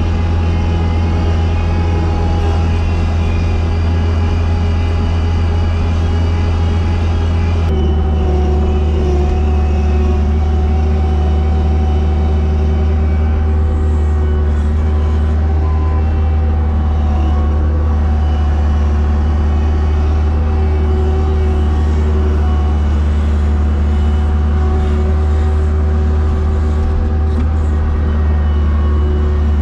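Sidewalk snow-plow machine's engine running steadily under load, heard from inside its cab. Its note steps down slightly about eight seconds in.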